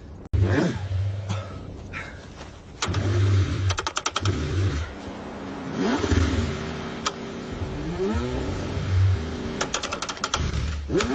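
Cold car engine being cranked over in repeated bursts, struggling to start without catching. Two runs of rapid clicking come about three seconds in and near the end.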